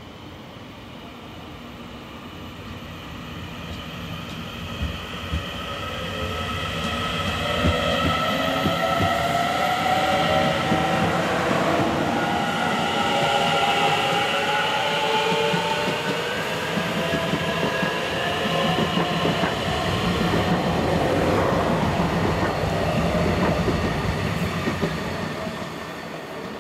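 Taiwan Railway EMU900 electric multiple unit pulling out and accelerating past. Its traction motors whine in several tones that rise steadily in pitch as it gathers speed, over the rumble of its wheels on the rails. It grows louder over the first several seconds as the cars draw level, then holds.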